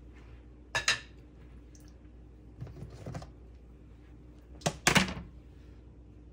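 A few sharp clicks and knocks of hard objects being handled: a pair about a second in, a fainter cluster around three seconds, and the loudest pair near five seconds.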